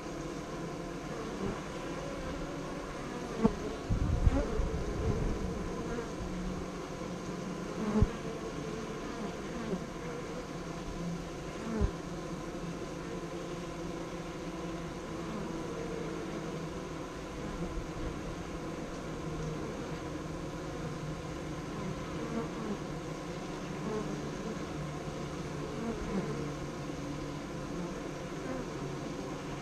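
Honeybees buzzing close by at a hive entrance: a steady hum with wingbeat tones drifting up and down as bees fly past. A few low thumps come around four seconds in and twice more soon after.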